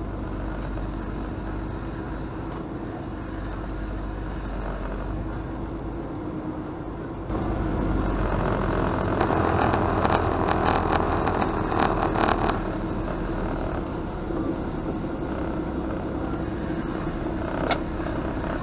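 Semi-truck's diesel engine running steadily, heard from inside the cab as the truck moves slowly. It gets louder about seven seconds in, with a few seconds of rattling clatter after that, and a single sharp click near the end.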